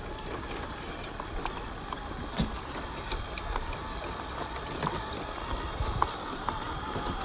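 Small-scale RC truck running over dirt and rock: steady running noise with many small clicks and knocks of tyres and plastic on stones, the sharpest about two and a half seconds in and again about six seconds in.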